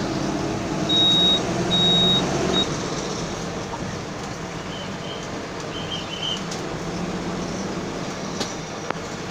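Bus running on the road, heard from the driver's cab: a steady engine and road rumble, with two short horn blasts about a second in.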